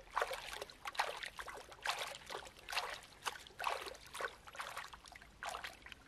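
Creek water trickling and sloshing in short irregular splashes, about one or two a second, as a dog is held and bathed in a stream pool.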